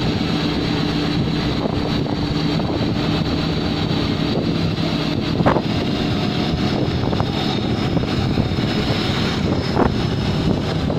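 Boat engine running steadily as the wooden fishing boat moves along under way, a constant low hum mixed with wind on the microphone and water rushing past the hull. A couple of brief knocks stand out, about halfway through and near the end.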